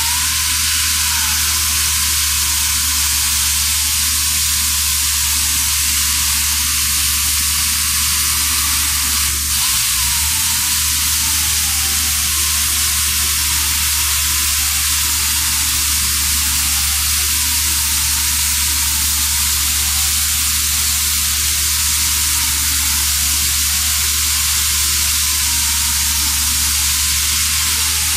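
Pneumatic concrete chain saw running under load while cutting wet concrete: a steady, loud hissing rush of air exhaust and grinding, with a low hum underneath. The sound dips briefly about ten seconds in.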